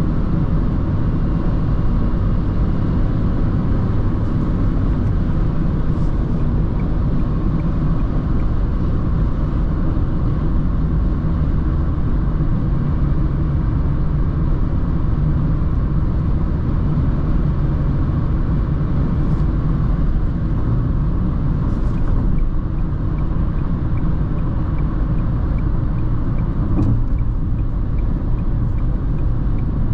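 Dacia Jogger TCe 110's 1.0-litre three-cylinder turbo petrol engine and tyres giving a steady low rumble while driving. Faint, evenly spaced ticking joins in the last third.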